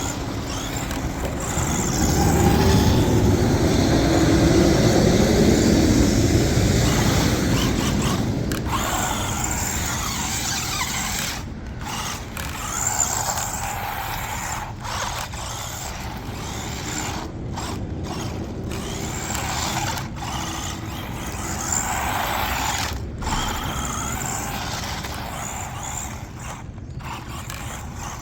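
JJRC Rigid C8805 1/14-scale RC truck driving on wet ground: its brushed electric motor whines up and down in pitch with the throttle over a hiss of tyre noise. It is loudest a few seconds in, and the sound is broken by several brief dropouts later on.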